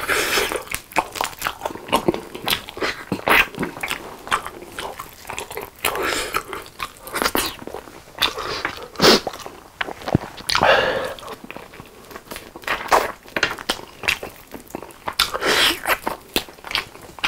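Close-miked biting and chewing of sticky sauce-coated chicken drumsticks: a dense, irregular run of sharp mouth clicks and smacks, loudest about nine seconds in, as the meat is bitten and pulled off the bone.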